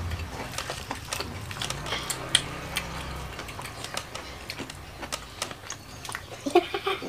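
Crispy battered fried mushrooms crunching and crackling as they are chewed and handled, close to the microphone: a steady run of irregular sharp crackles.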